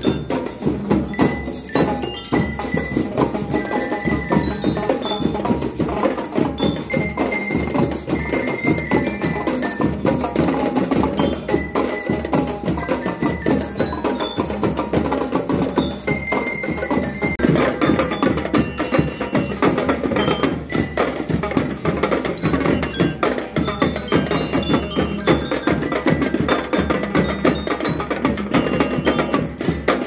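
School marching band playing: bell lyres ring out a melody over a steady rhythm from snare drums, congas and other drums.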